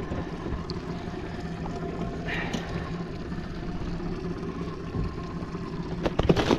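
Steady low hum of the boat's outboard engine idling. Near the end come a few sharp clicks and knocks as the descending device is handled.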